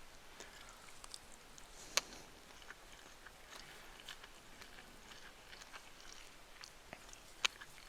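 Chewing and small clicking sounds of someone eating chicken fried rice, with two sharp clicks, one about two seconds in and one near the end.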